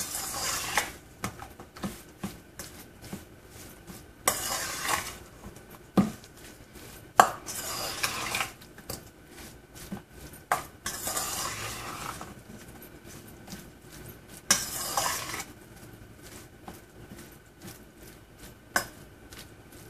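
A metal spoon stirring raw shrimp in a stainless steel mixing bowl, coating them in dry spices and cornstarch for a marinade. There are several scraping sweeps of about a second each, with scattered clinks of the spoon against the bowl.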